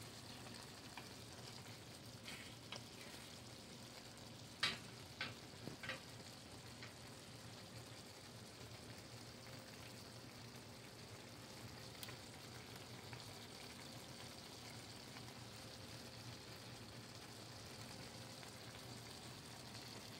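Faint, steady sizzle of chicken, shell pasta and vegetables cooking in a pan, with a few sharp clicks about five seconds in.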